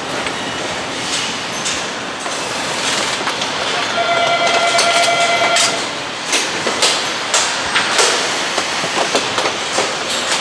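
Motorcycle assembly line noise: a steady hiss of machinery with sharp metallic clicks and clanks of tools and parts. About four seconds in, a steady high tone sounds for about two seconds; after it the clanks come more often.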